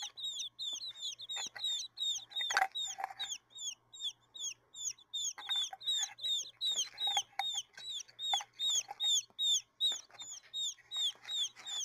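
Baby quail peeping: a steady, rapid run of short, high, falling peeps, about three or four a second, with softer, lower chirps now and then.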